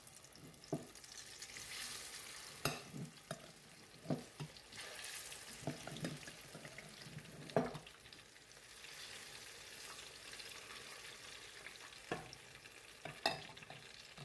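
Sliced plantain frying in hot oil with a steady sizzle, crossed by several sharp clicks and knocks of a utensil against the pan, the loudest about halfway through.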